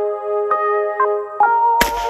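Electronic background music with held keyboard notes that change every half second or so. About 1.8 s in, a single shot from a Llama .32 ACP pistol.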